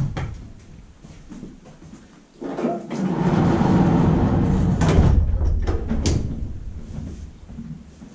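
Wooden horse-stall sliding door rolled shut along its track, a rumble of a few seconds, with a few sharp clicks toward its end.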